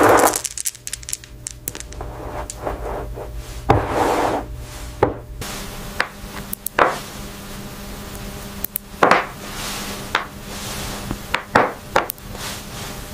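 Pearls clicking and rubbing against each other as they are pushed together by hand on a pad, then nudged with steel tweezers. Scattered sharp ticks with a few longer brushing sounds.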